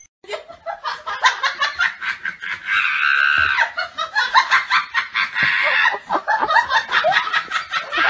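A person laughing in quick repeated bursts, with a longer high squeal about three seconds in.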